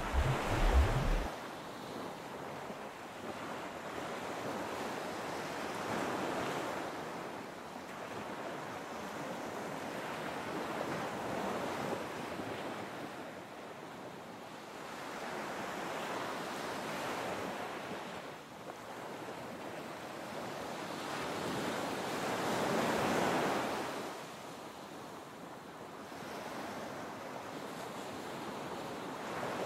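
Ocean surf washing in and out, swelling and fading every five or six seconds. A low rumble at the start cuts off suddenly about a second in.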